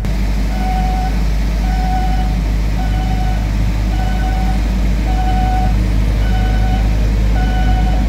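Railroad crossing warning bell ringing about once a second with a steady pitched ding, over the low engine rumble of a small orange rail shunting vehicle approaching the crossing.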